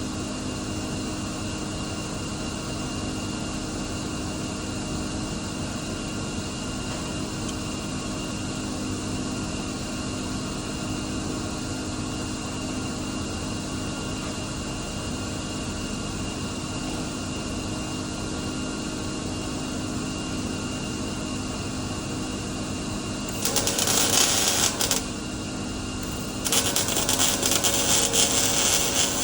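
Welding arc crackling in two bursts near the end, a short one of about a second and a half and then a longer one, over a steady machine hum.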